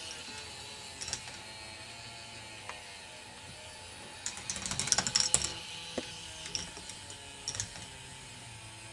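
Plastic K'nex crossing-arm lift mechanism working: scattered clicks and a dense burst of rapid clicking and rattling about halfway through, over a steady low hum.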